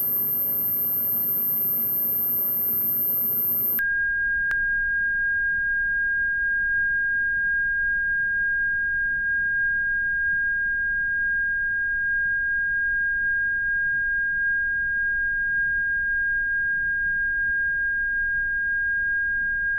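Steady pure electronic tone, very high-pitched, that switches abruptly about four seconds in to a much lower steady tone, with a single click half a second after the switch and a faint low hum underneath. This is the test signal sent to the ultrasound emitter at an audible pitch, its frequency not set correctly.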